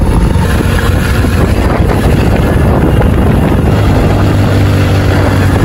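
Motorcycle engine running at a steady pace while riding, with wind rushing over the microphone. The engine's low hum grows stronger about four seconds in.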